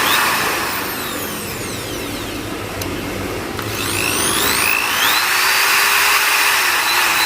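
Dongcheng DJZ10A electric drill running with no load, a test of how it sounds. Its motor whine slides down in pitch over the first few seconds as it slows, then climbs again about four to five seconds in as it speeds back up.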